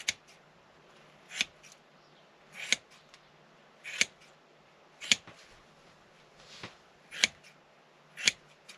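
Fiskars craft scissors snipping through a latex mattress, one cut about every second, about eight snips, each a short swell ending in a sharp snap as the blades close.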